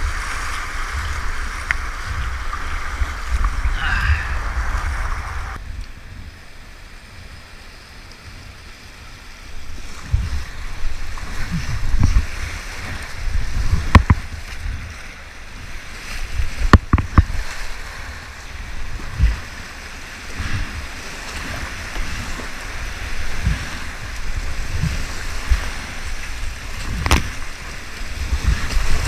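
Whitewater rushing around a kayak, heard through a helmet-mounted action camera, with wind buffeting the microphone. The sound goes dull for a few seconds about six seconds in. After that come low thumps and several sharp knocks from paddle strokes and water hitting the camera.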